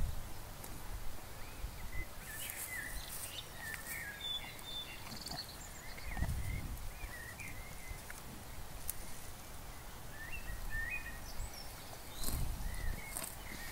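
Small birds chirping over and over, with a few short crisp rustles of Highland cattle tearing grass close by. Two brief low rumbles come about six and twelve seconds in.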